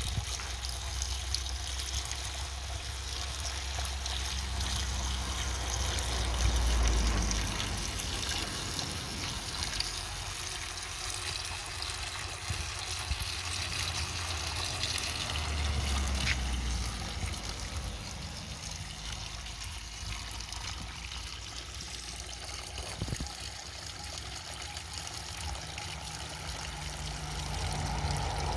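Water from a small garden cascade fountain running steadily, trickling and splashing down stepped stone basins and falling onto gravel. A low rumble comes and goes, strongest about seven seconds in.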